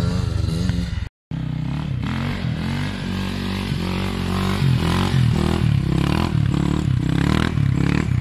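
KTM EXC 450 single-cylinder four-stroke engine being blipped over and over, its pitch rising and falling with each twist of the throttle. The sound cuts out completely for a moment about a second in, and the blips come quicker and sharper toward the end.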